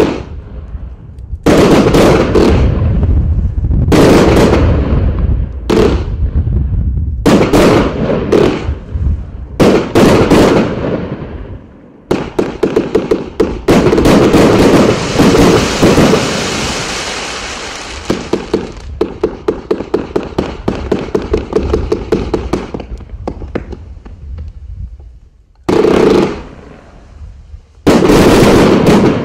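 Riakeo Night Stalker compound firework cake, a 199-shot cake firing 20, 25 and 30 mm shells: a string of loud shots and bursts. In the middle comes a fast run of several shots a second, and near the end two heavy finale volleys.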